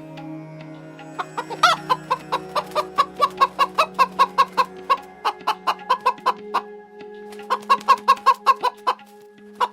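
Chickens clucking in quick short calls, about four a second, with one rising squawk near the start and a short pause before a second run of clucks.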